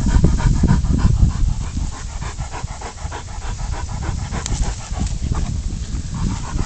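Pig-hunting dog panting fast and hard close to the microphone.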